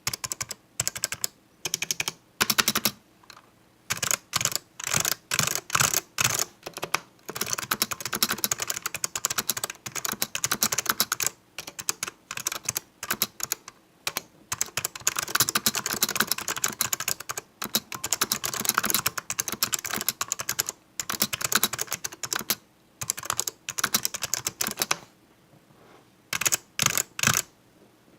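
Typing on a VA68 mechanical keyboard with click-modded cream damped Alps switches: rapid runs of sharp key clicks in bursts, with short pauses between them and a longer pause near the end.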